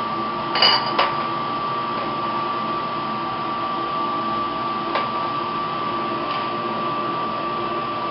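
Steady hum of a lab hood's ventilation fan with a thin constant whine. Glass bottles clink twice about a second in, and there is a lighter knock near five seconds.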